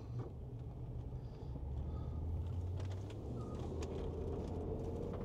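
Land Rover LR4 driving, heard from inside the cabin: a steady low engine and road hum as it speeds up. A faint whine rises slowly in pitch over the last couple of seconds, with a few light clicks.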